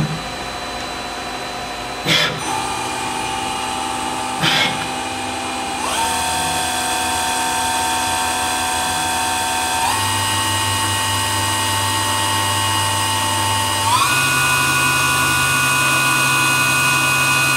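Citizen B12 CNC Swiss lathe's main spindle running with a steady whine, its pitch stepping up several times as the spindle speed is raised. Three sharp clicks come about two seconds apart in the first few seconds. The spindle and slides sound healthy, the spindle running really nicely.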